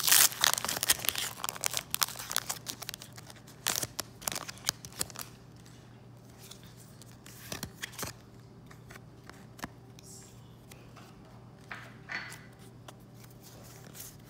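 Foil booster-pack wrapper torn open and crinkled, loudest in the first second or two and thinning out by about five seconds in. After that, quieter rustles and occasional soft clicks of the trading cards being handled.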